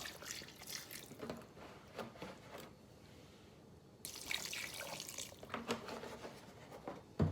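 Vinegar sloshing and dripping as it is added to chopped raw chicken, with wet, irregular splashing and handling sounds. A dull knock comes just before the end.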